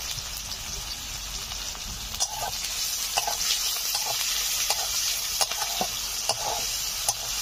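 Sliced onions sizzling steadily in hot mustard oil in a metal kadai. From about two seconds in, a spatula stirs them, scraping and clicking against the pan.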